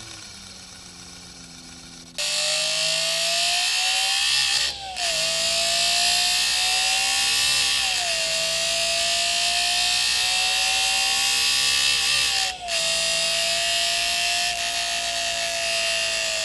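Homemade engine-sound machine: a paper strip slapping against a spinning cardboard disc cut with four notches, giving a buzz like a four-cylinder engine. It hums quietly at first, then about two seconds in jumps to a loud, high buzz held at high revs, its pitch wavering up and down, with two brief dips.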